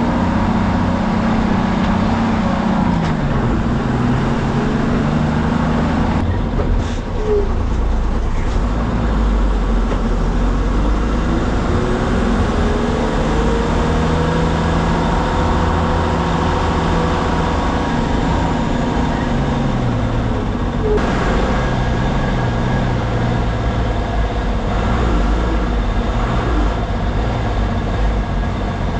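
MSRTC bus's diesel engine running under a steady road rumble, heard from the driver's cabin on the move. The engine note drops a few seconds in, climbs steadily as the bus accelerates through the middle, then falls away again.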